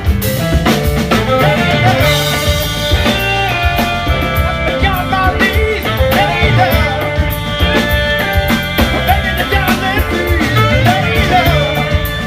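Live band playing: drum kit and electric bass keep a steady groove while a lead melody line bends and slides in pitch over the top.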